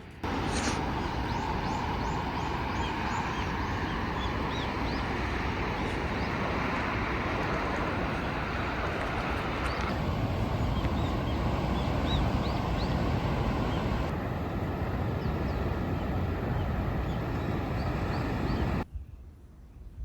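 Steady outdoor rushing noise with birds chirping briefly here and there. The sound changes abruptly about ten seconds in and again around fourteen, and drops away near the end.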